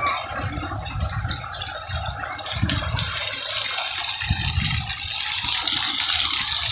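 Stone fountain water bubbling up through a hole in a sandstone slab and spilling over its edges onto the paving, a steady splashing that grows louder about halfway through.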